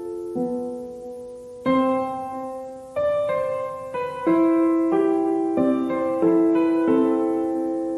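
Background piano music: slow, gentle chords and single notes, each struck and left to ring and fade before the next.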